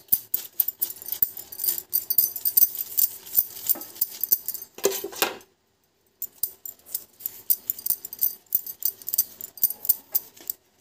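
Ghee sizzling and crackling under an aloo paratha on a hot tawa, a dense run of fine pops with light metallic clinks. The sound cuts out for a moment a little past halfway.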